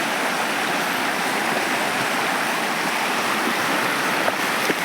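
River water flowing, a steady, even rush of moving water, with a couple of faint clicks near the end.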